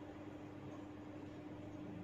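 Steady low hiss with a faint constant hum, and no cracks or clicks: room tone.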